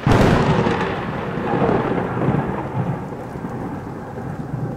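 A thunderclap: a sudden sharp crack, then a long rolling rumble that slowly fades, with rain.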